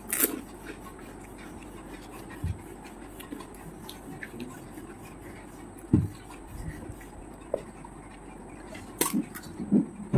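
Eating panipuri: a crisp crunch as a whole puri goes into the mouth, then chewing. Near the end come a few knocks and clicks as she handles the bowls and picks up a fresh crisp puri shell.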